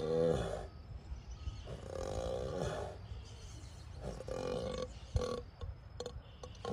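An ox snoring in deep sleep: long, groan-like snores that come about every two to three seconds, with a short click a little past the middle.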